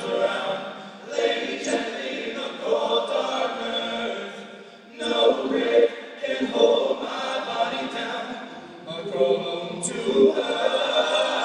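Men's a cappella ensemble singing sustained chords in close harmony, in phrases a few seconds long, each swelling up after a short dip.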